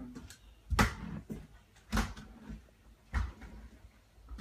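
Metal crutches striking the floor in a walking rhythm: three sharp knocks about a second apart, with lighter clicks between them.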